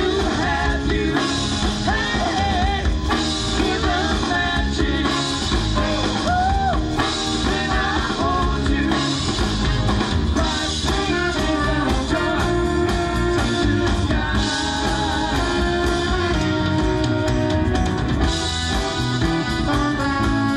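Live rock band playing: drum kit, electric bass and guitars, with a man singing lead for about the first half; after that the band plays on with held instrumental notes.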